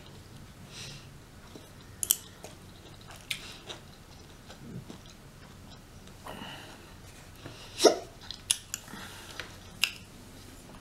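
Close-miked chewing and wet mouth smacks of someone eating rotisserie chicken, with sharp clicks scattered through. One loud hiccup comes about eight seconds in.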